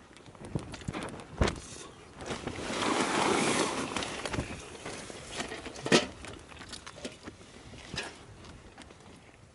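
Knife and fork clinking and scraping against a camping plate during a meal, a handful of sharp clicks with the loudest about six seconds in. A longer rustle rises and fades about three seconds in.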